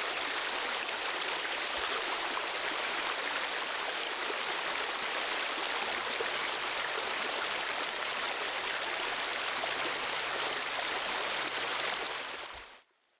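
Rushing stream water, a steady even rush that fades out quickly near the end.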